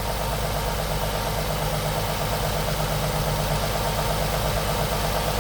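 Nissan 350Z's VQ35HR V6 idling at a steady, even pitch. The hole that caused a hissing sound and an unstable idle has just been closed, so the idle holds steady.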